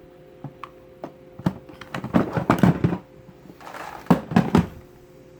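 Hard plastic Milwaukee Packout organizer boxes being handled and locked or unlocked: a run of sharp clicks and knocks, busiest about two seconds in and again near four seconds.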